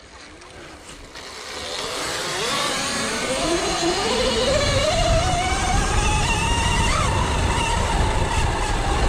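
Electric dirt bike accelerating hard: the motor's whine rises steadily in pitch for several seconds and levels off in the last couple of seconds, over wind and tyre noise.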